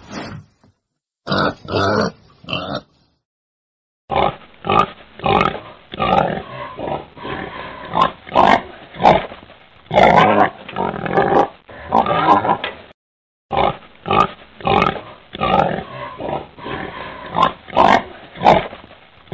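Wild boar grunting: three short grunts, a pause of about a second, then a long run of quick grunts at about two a second, with one brief break about two-thirds of the way through.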